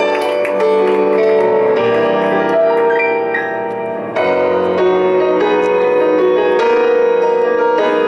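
Keyboard music: sustained electric-piano chords that change every second or two, with no singing.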